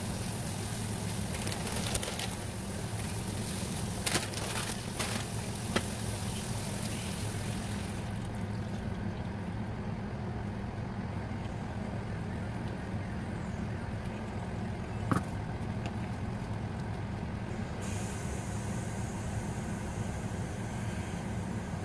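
Chicken strips sizzling in a grill pan on an induction hob over a steady low hum, with a few light knocks as dry fettuccine nests are set into the pan. About eight seconds in the sizzle drops away to a quieter simmer once water is in the pan.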